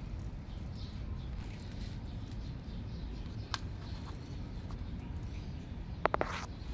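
Cat hissing briefly near the end, a short sharp spit followed by a breathy hiss, over a steady low background rumble.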